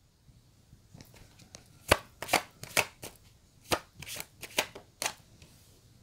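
Tarot cards being handled: a run of about seven sharp taps and slaps of cards against the deck and table, starting about two seconds in.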